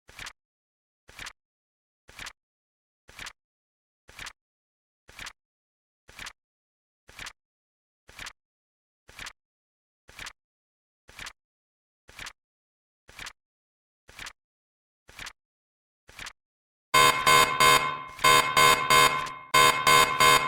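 Countdown timer sound effect: a soft tick about once a second, then, about seventeen seconds in, a loud alarm-clock beeping in quick groups of four signals that the countdown has ended.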